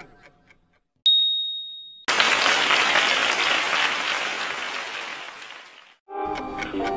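Quiz sound effects: a single high ding about a second in, then recorded applause that fades away over about four seconds, marking the answer reveal.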